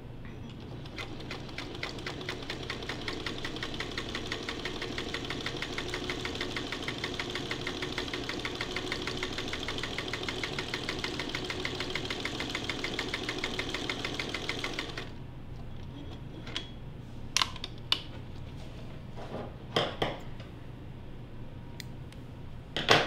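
1952 Singer 301 sewing machine stitching a test seam: its motor hums steadily under a rapid, even ticking of the needle mechanism, which starts about half a second in and stops abruptly after about fifteen seconds. A few sharp clicks and knocks follow, the loudest near the end.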